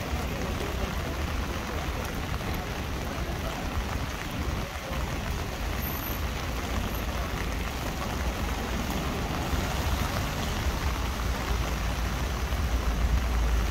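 Rain falling on an umbrella overhead and on wet pavement: a steady, even hiss. A low rumble underneath grows louder near the end.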